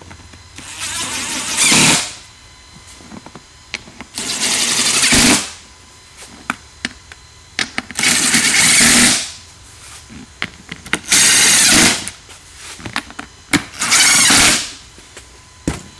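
Cordless DeWalt impact driver hammering quarter-20 bolts down into a seat's metal hinge rail: five bursts of about a second each, a few seconds apart, one bolt per burst.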